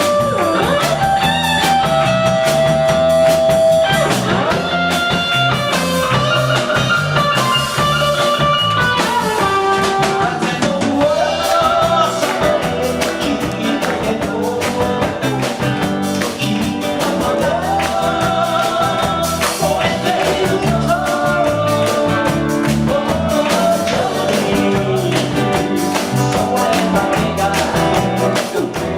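A rock band playing live: electric guitar and drum kit with a singer's voice over a steady beat.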